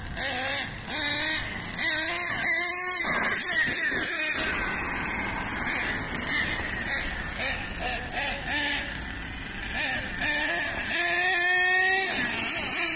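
Nitro engine of an HPI Savage RC monster truck, an LRP ZR.30, running at high revs with a high-pitched, wavering note that revs up and falls away as the truck is driven around. The note is loudest twice, about two and a half seconds in and again near the end.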